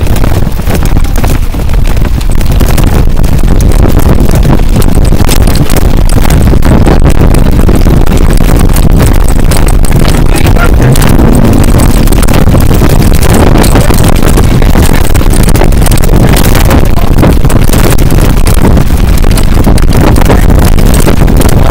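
Bicycle child trailer rolling over pavement, heard from a camera riding inside it: a loud, steady rumble and rattle of the trailer's wheels and frame that sets in as it starts moving.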